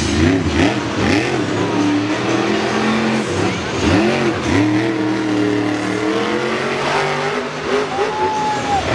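Hot Wheels monster truck's supercharged V8 engine revving hard, its pitch dropping and swooping back up several times as the throttle is worked, then held at a high steady pitch near the end.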